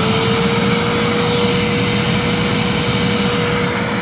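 Fantom Fury 12-amp vacuum cleaner running at full speed: a steady motor whine over loud rushing air.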